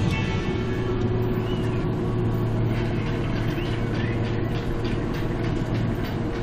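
Tractor's diesel engine running steadily under load while pulling a plough, heard from inside the cab as a steady low drone.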